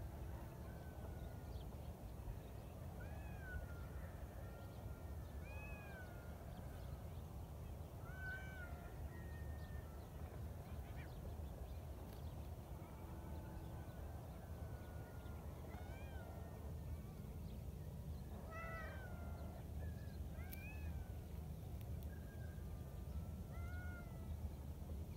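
Several cats meowing now and then in short, rising-and-falling calls, over a low steady rumble.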